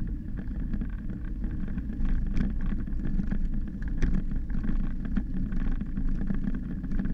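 Wind buffeting a bicycle-mounted camera's microphone while riding over brick paving: a steady low rumble with a rapid patter of small knocks and rattles from the bike on the uneven surface.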